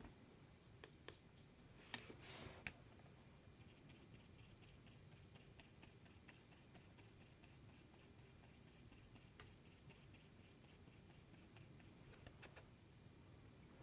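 Near silence: room tone with faint light ticking and a couple of small clicks.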